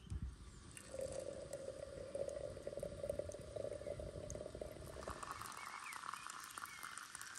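Hot water running from a samovar's tap into a porcelain teapot, starting about a second in. The pitch of the stream steps up about five seconds in as the pot fills.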